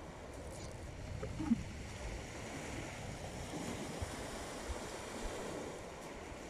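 Small waves breaking and washing up a pebble shore, with wind rumbling on the microphone. A brief sharp tap about a second and a half in.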